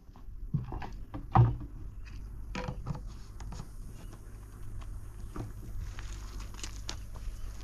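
Scattered knocks and rustles as a plastic bucket and a chicken-wire fence with its wooden stake are handled, with one louder thump about a second and a half in. A low steady rumble runs underneath.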